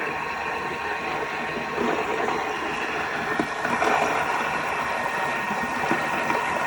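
Thermomix running its blades at speed, chopping cauliflower pieces: a steady machine noise.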